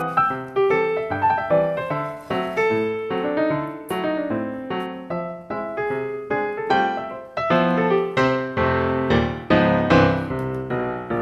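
Background music: solo piano playing a flowing melody over chords, notes struck several times a second and ringing out.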